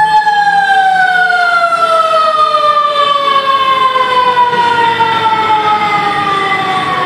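Fire truck siren in one long wail that slides slowly and steadily down in pitch.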